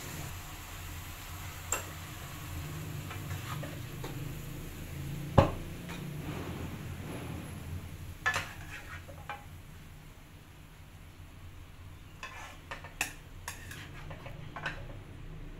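Metal spatula stirring bean sprouts in a nonstick wok with a light sizzle, one sharp knock against the pan about five seconds in. Later, a few quick clinks as the stir-fry is scooped onto a ceramic plate.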